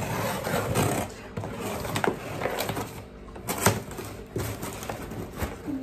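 Fingernails scratching at and peeling packing tape off a cardboard shipping box, with scattered sharp clicks and scrapes of the cardboard.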